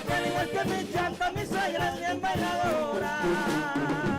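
Band music: a melody wavering in pitch over a steady rhythm.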